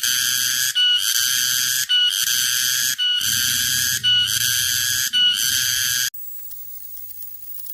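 Cicada song repeating in buzzing phrases about once a second, each phrase opening with a short clear note. It cuts off suddenly about six seconds in.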